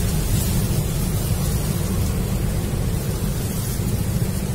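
Wind blowing on the microphone: a steady low rumble with a fainter hiss over it.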